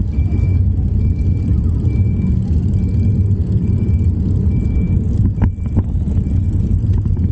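Vehicle backup alarm beeping: one short high beep a little under every second, over a steady low rumble. Two sharp knocks about five and a half seconds in.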